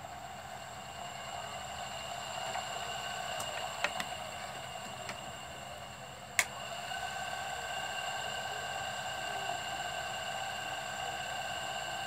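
Ceiling fan motor, just wired to its capacitor, spinning at high speed on test with a steady whirring hum and whine: the capacitor connection works. A couple of sharp clicks come midway.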